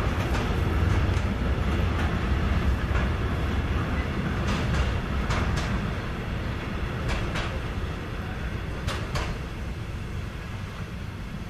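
Container freight train's wagons rolling past, a steady low rumble with pairs of sharp wheel clicks every second or two, gradually growing quieter toward the end.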